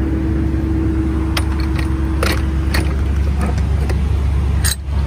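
Reefer trailer's refrigeration unit running with a steady low drone while the stainless rear door is swung shut: a few light metallic clicks from the door hardware, then one sharp clunk near the end as the door shuts.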